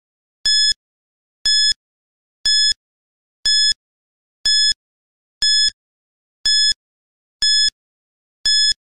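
Quiz countdown timer sound effect: a short, high-pitched electronic tick once a second, nine times.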